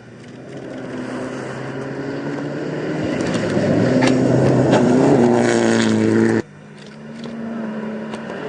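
Rally car on a gravel stage approaching at speed, its engine note growing steadily louder, with loose gravel pinging and clicking under the car. The sound cuts off suddenly about six seconds in, and another engine then builds up again from afar.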